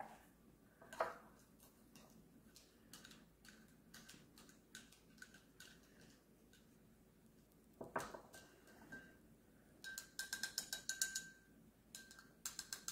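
Spoon clinking and scraping against a ceramic bowl while minced garlic is stirred into melted butter: scattered knocks and taps, then a quick run of ringing clinks about ten seconds in and a few more near the end.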